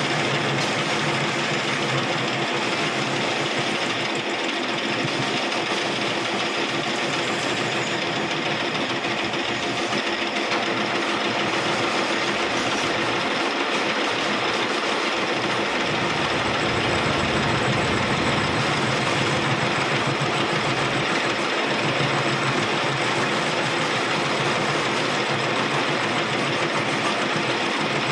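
Steady, continuous metalworking machine noise with a dense crackle and a constant hum, running without a break as the worn shaft of a truck water pump is built up and machined.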